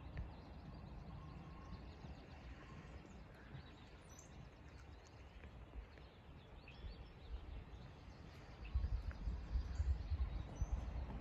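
Faint outdoor ambience with scattered bird chirps over a low rumble; the rumble swells in uneven pulses near the end.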